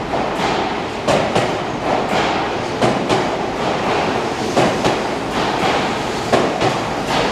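Odakyu Romancecar VSE train rolling along the track, its wheels clacking irregularly over rail joints and points above a steady rolling noise.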